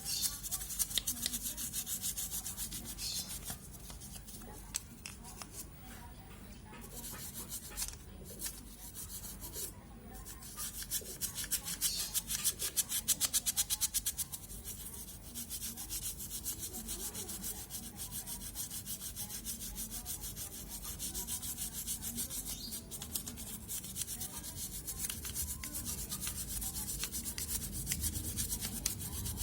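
Rapid back-and-forth scrubbing on a hard surface, in a quick, even rhythm of strokes, louder and crisper for a few seconds around the middle.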